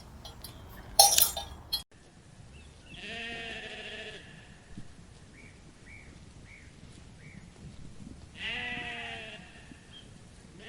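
A sheep bleating twice, each a wavering bleat of about a second, several seconds apart, with four faint short chirps between them. Before that, a brief clatter of knocks and a loud burst, which cut off about two seconds in.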